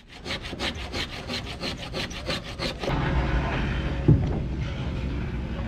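Quick, even back-and-forth strokes of a hand tool working wood, about six a second, for nearly three seconds. Then it changes to a steady low rumble with a single knock about four seconds in.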